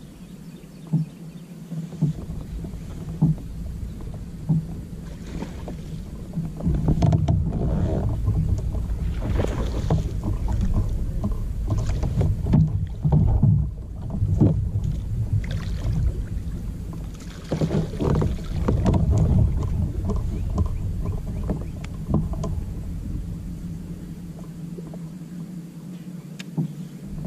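Water splashing and sloshing beside a fishing kayak as a landing net is swept through it, with irregular knocks of gear against the hull, busiest through the middle stretch.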